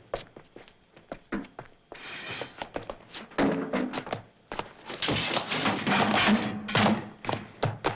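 Foley sound effects performed for an action scene: a rapid series of thuds and knocks, sparse at first and busier and louder from about five seconds in.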